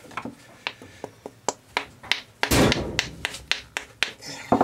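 A screwdriver used as a hammer repeatedly tapping a faucet's quarter-turn ceramic cartridge to knock its stuck stem out, giving irregular sharp taps about two to three a second. One louder, longer burst comes about halfway through.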